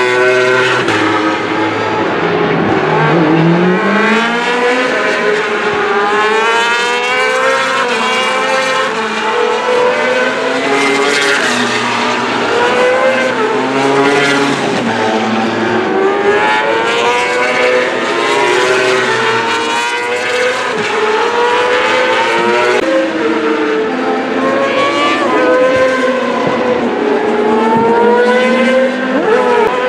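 Racing superbike engines revving hard through the gears as the bikes pass. Their pitch climbs in repeated rising sweeps with quick drops at each gear change and on braking, and several bikes are often heard at once.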